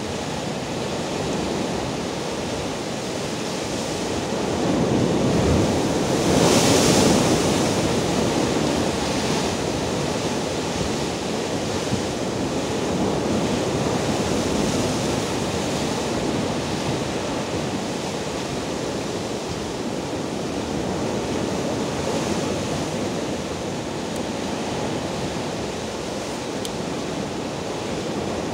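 Rough sea surf breaking and washing over shoreline rocks: a continuous rush of foaming water, with one louder crash about seven seconds in.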